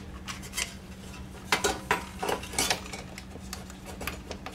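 Thin sheet-metal reflector pan of an air fryer knocking and clinking against the metal housing as it is worked into place, in a scattering of sharp, irregular taps.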